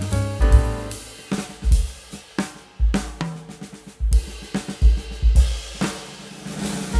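Background music: a drum kit with bass drum, snare and cymbals over a bass line, playing a steady beat.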